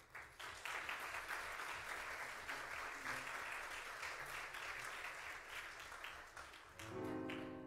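Congregation applauding, a dense patter of many hands clapping that begins suddenly and lasts about seven seconds. Near the end, piano music begins under the fading applause.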